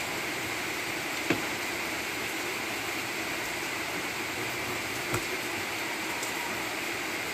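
Kitchen knife striking a wooden chopping board while cutting raw meat: one sharp knock about a second in and a softer one near the middle, over a steady background hiss.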